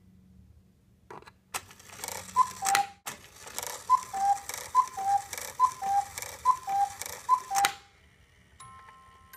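Cuckoo clock calling the hour: after a couple of mechanical clicks, the bird sounds six two-note 'cuck-oo' calls, high then low, over the hiss of its bellows. A final clunk comes as the mechanism stops.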